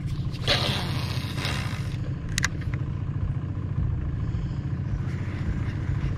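Boat motor idling, a steady low hum, with a short rush of noise about half a second in and a couple of sharp clicks around two and a half seconds in.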